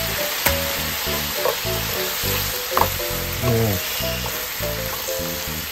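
Madake bamboo shoots sizzling in sesame oil in a frying pan as they are stir-fried with chopsticks, with a couple of sharp clicks of the chopsticks against the pan. Background music plays throughout.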